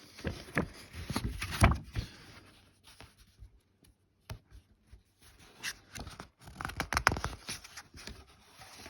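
Paper rustling and scraping in irregular clicks, as the pages of a paperback picture book are handled and turned, in two busy spells with a quiet stretch between.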